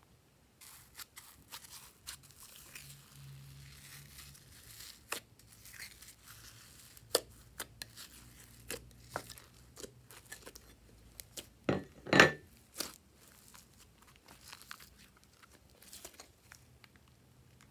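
Glossy purple slime with a glitter layer being pressed, peeled and folded by hand: sticky crackling with many small clicks and pops, and a louder cluster of pops past the middle.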